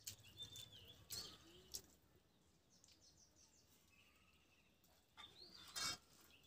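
Near silence with faint bird chirps in the background, a few soft clicks, and one short, sharper sound a little before the end.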